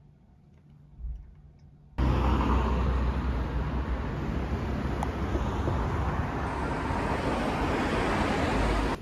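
Faint room tone, then about two seconds in a sudden cut to loud, steady road traffic noise from cars on a street, with a strong low rumble.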